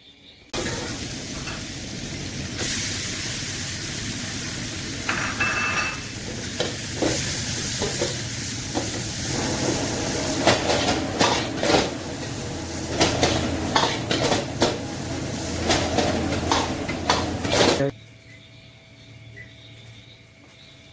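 Food sizzling and frying in a hot pan, with a spatula scraping and knocking against the pan as it is stirred. The sizzle starts suddenly about half a second in, the stirring knocks come thick from about a third of the way through, and it all cuts off suddenly near the end.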